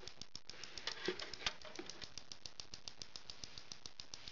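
Radio-frequency impulse jammer running, giving a fast, even clicking of about nine clicks a second, with a couple of louder knocks about a second in.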